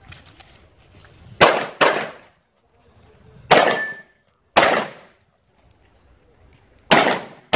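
Six pistol shots with a short echo after each: a quick pair, then two single shots about a second apart, then another pair near the end.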